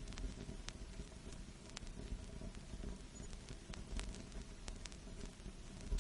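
Vinyl record surface noise: a steady low rumble and faint hiss with scattered sharp crackles and pops, a few each second.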